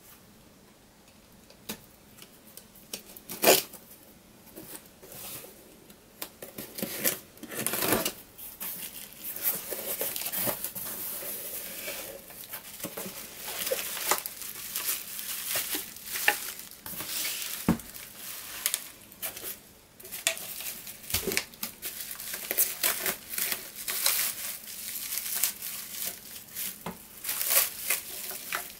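Cardboard box being opened and plastic wrapping being torn and crinkled off the packed cans, a dense run of irregular crisp rustles and clicks, with one sharp crack about three seconds in.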